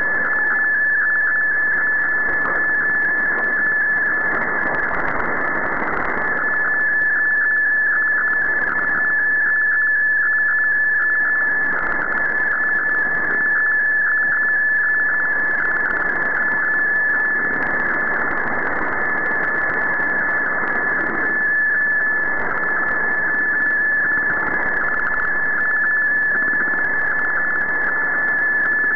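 Shortwave radio receiver audio of a digital-mode data signal, here a picture being transmitted. It is heard as a steady high whistle over a rushing, fluttering hiss of static that holds level throughout.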